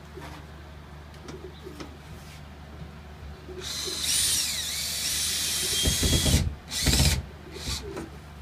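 Pigeons cooing softly, then a power drill running for about three seconds, its whine rising and falling in pitch, as screws are driven into the wooden wall to mount the fan. A couple of heavy knocks follow, then a second short burst of the drill.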